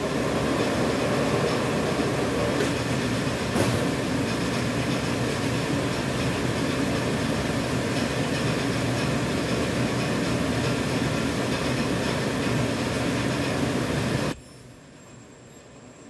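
Dental-mask production machine running: a steady mechanical rattle and hum from the line. Near the end it changes suddenly to a louder, very high, thin whine.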